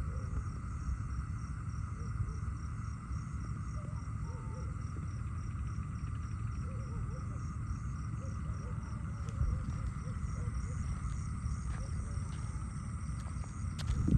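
Night insects, crickets, chirping steadily in a chorus, with a quick pulsing trill high above, over a steady low rumble. A louder bump comes right at the end.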